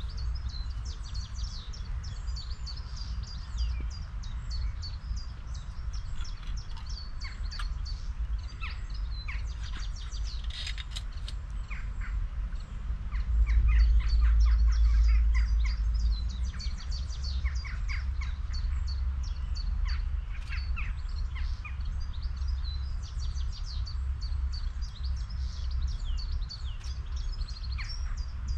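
Wild birds calling and singing, a steady stream of many short, high chirps overlapping one another, over a low rumble that swells for a couple of seconds about halfway through.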